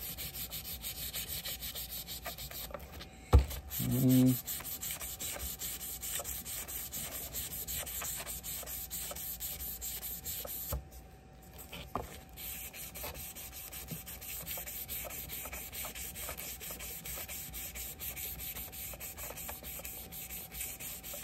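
Fine sandpaper, wetted with Ballistol oil, rubbed rapidly back and forth by hand over the corroded brass bolster of a Schrade LB-5 Bear Hunter folding knife: a fast, steady scrubbing that pauses briefly near the middle. A single sharp knock about three seconds in.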